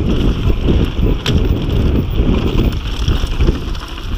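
Wind buffeting the camera microphone over the rumble and rattle of a downhill mountain bike's tyres on a fast dirt trail descent, with one sharp click about a second in.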